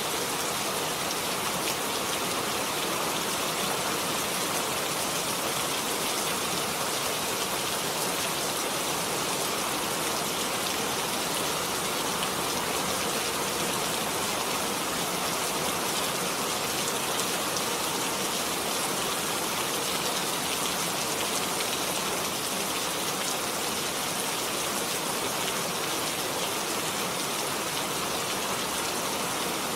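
Steady rain falling, an even, unbroken hiss of drops on a surface.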